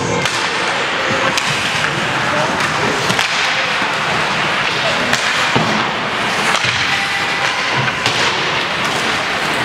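Ice hockey play in a rink: skates scraping over the ice, with sharp clacks of sticks and puck now and then, over a steady hiss of arena noise.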